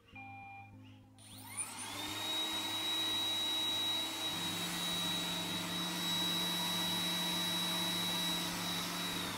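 iRobot Roomba 980 robot vacuum beginning to clean. A last short note of its electronic start-up tune sounds at the start. About a second and a half in, its vacuum motor winds up with a rising whine into a loud, steady running whine: the higher-powered suction mode that the vacuum starts out with.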